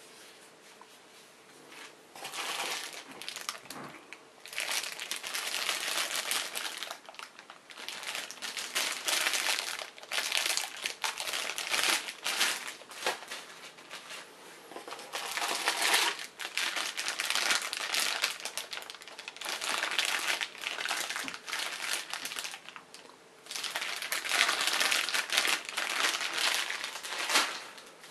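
Plastic packaging bags crinkling and rustling as they are handled and opened, in long crackly bursts with short pauses between them.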